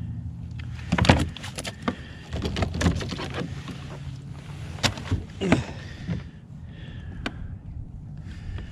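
Irregular knocks, thumps and rattles against a plastic kayak hull and gear as a freshly landed flathead is handled and unhooked, with sharp knocks about 1, 5 and 7 seconds in.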